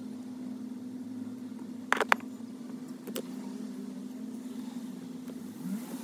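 Two sharp plastic clicks close together about two seconds in, then a fainter one a second later, as wiring-harness connectors are handled and snapped together under a car's dashboard, over a steady low hum.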